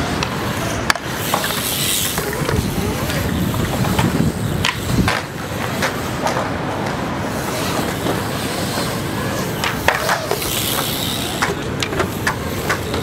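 Wheels rolling and grinding on the concrete of a skate bowl, with scattered sharp clacks and knocks from the riders' boards, scooters and bikes.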